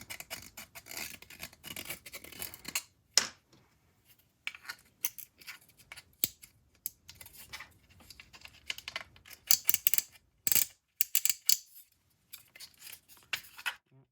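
A 3D printed plastic lock piece being abraded by hand in short, irregular scraping strokes with brief pauses, a few louder strokes about three seconds in and around ten seconds in. The sanding is to ease a lock that is too tight to rotate freely.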